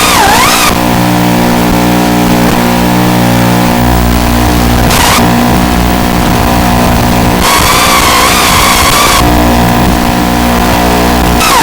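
Small indoor FPV drone's motors and propellers whining steadily. The pitch wavers and swells in short bursts, at about five seconds and again from about seven and a half to nine seconds, as the throttle changes.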